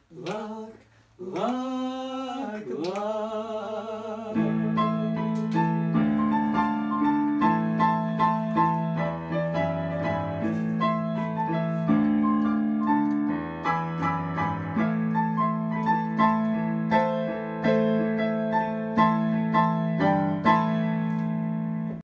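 A voice sings a few notes that slide in pitch, then about four seconds in a digital piano takes over and plays sustained chords and melody notes to the end.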